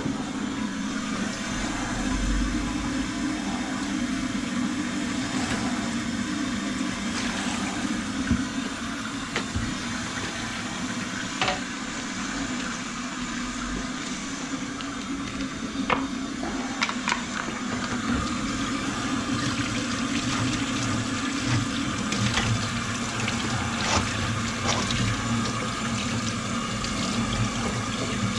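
Water running steadily into a kitchen sink from the tap, with scattered clicks and knocks from the drain-snake cable and drum being handled.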